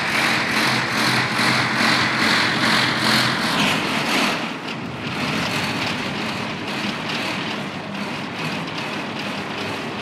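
Music from a large concert sound system during a sound check, heard from outside the hall, with steady bass notes under it; about four and a half seconds in it drops to a quieter passage.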